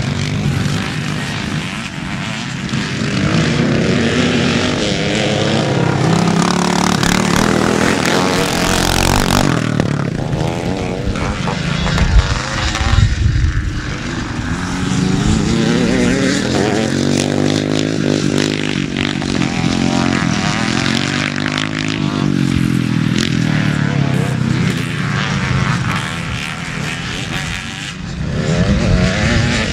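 Several classic motocross bikes racing past, their engines revving up and down in pitch as they accelerate, shift and pass one another, with a brief noisy rush about nine seconds in.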